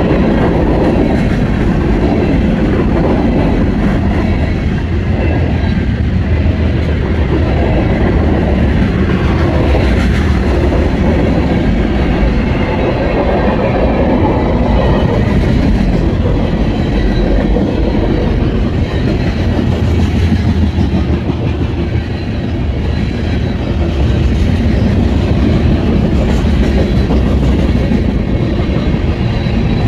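Norfolk Southern freight train's cars rolling past on the main line at close range, a loud, steady rumble of wheels on rail that carries on without a break.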